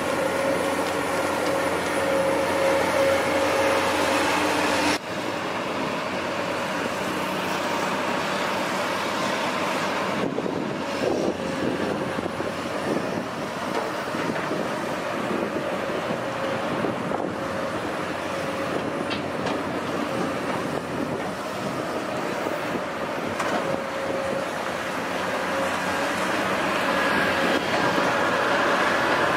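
Long-reach excavator's diesel engine and hydraulics running steadily, with a steady whine over the engine noise. The sound changes abruptly about five seconds in and again near ten seconds.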